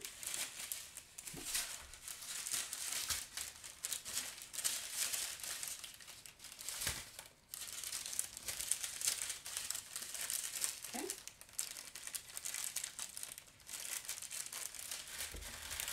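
Thin plastic packaging crinkling and rustling as a strip of small bags of diamond-painting drills is handled and laid down, with a brief pause about seven seconds in.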